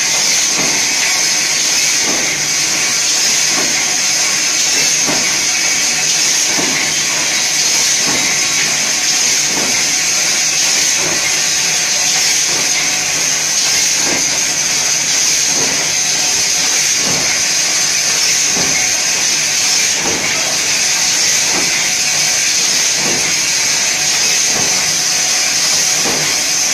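Blister packing machine running: a steady high hiss with a faint regular stroke of its stations about every second.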